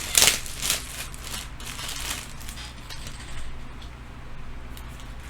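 Rustling and handling noises from items being moved about, with a sharp crinkle about a quarter second in and softer rustles that fade out after a few seconds, over a steady low hum.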